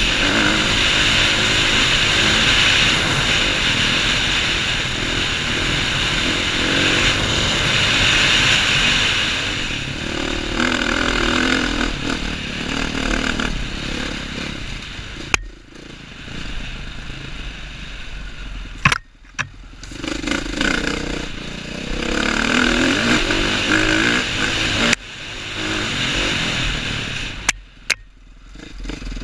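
2015 KTM 450 XC-F dirt bike's single-cylinder four-stroke engine running at speed, steady for about the first ten seconds. After that the throttle comes on and off several times, the engine dropping away briefly three times. A few sharp knocks come through.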